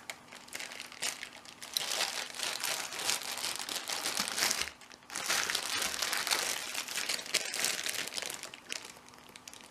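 Packaging being crumpled and rustled by hand, a dense crinkling in two long bouts with a short pause a little before halfway.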